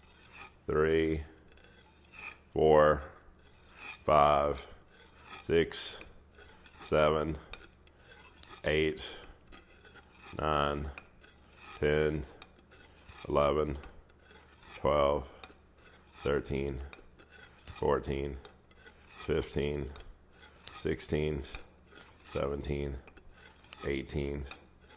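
An R2/SG2 steel kitchen knife (bunka) drawn across a hand-held Amakusa natural whetstone, one pass about every second and a half. Each pass is a short, ringing metal-on-stone scrape. The edge is being deliberately dulled before sharpening.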